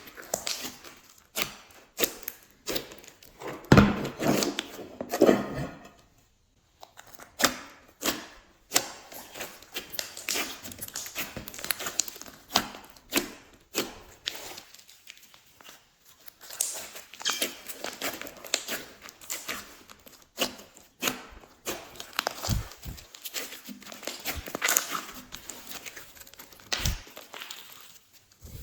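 Glossy slime being worked by hand, with irregular sticky clicks and crackles, a denser, louder stretch about four seconds in and a brief pause just after.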